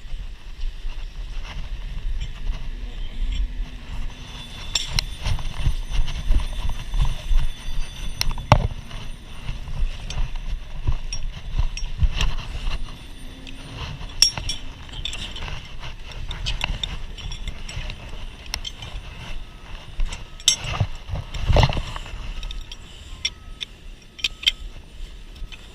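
Scattered metal clinks and knocks of firefighting equipment being handled, over an uneven low rumble with wind buffeting the microphone.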